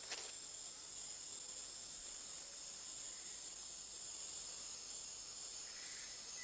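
Steady high-pitched drone of rainforest insects, several shrill tones held together over a hiss, with one click at the very start.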